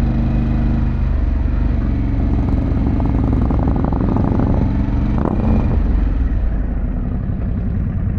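Harley-Davidson Pan America's V-twin engine running at low, steady revs while riding, over a constant low rumble, its pitch shifting slightly a couple of times.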